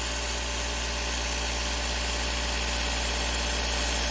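Sharpening grinder's motor running steadily while the steel edge of a Robot Coupe S-blade is ground against it to raise a burr, a constant hum under a grinding hiss.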